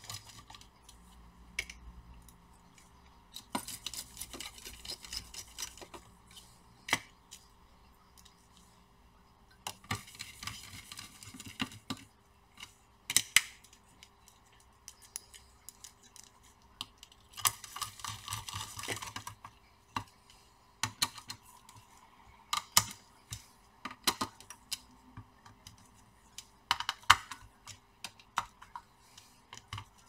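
Small screws being driven back into a graphics card's backplate and bracket with a precision screwdriver: scattered sharp clicks and taps of metal and plastic as the card is handled, with a few stretches of scraping, at about 4, 11 and 18 seconds in.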